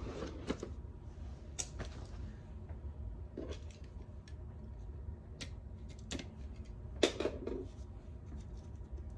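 Hands unwrapping and handling a boxed photobook album: scattered light clicks, taps and rustles of plastic and cardboard, with one sharper tap about seven seconds in.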